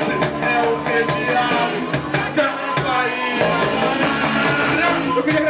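Live rock band playing, with guitar and regular drum hits.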